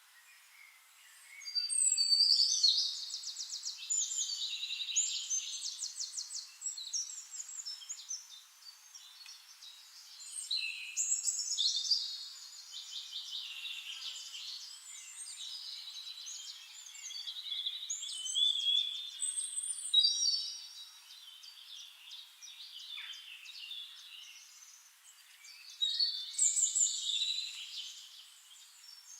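Songbirds singing in complex, high-pitched phrases with fast trills, coming in bouts about every eight seconds with quieter calls between.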